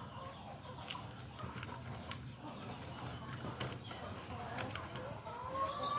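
Toy model locomotive pushed by hand along plastic track, making scattered light clicks and clatter over a steady low hum.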